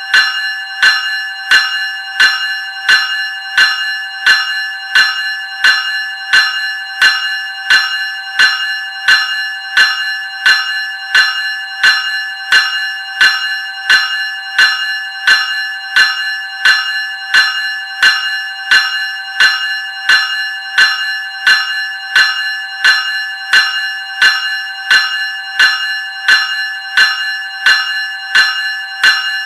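Graham 373 Series electric bell ringing continuously, struck in a steady, even series of about two strokes a second, its tone ringing on between strokes.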